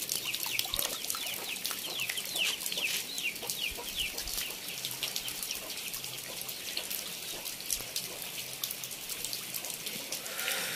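Steady rain hissing on the ground and puddles. Over roughly the first half, birds give rapid, repeated high falling chirps, which fade out about five seconds in.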